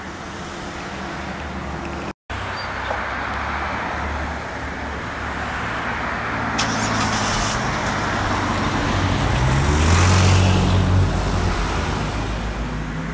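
Road traffic going by on a street, with one vehicle passing close and loudest about ten seconds in. The sound cuts out for a moment about two seconds in.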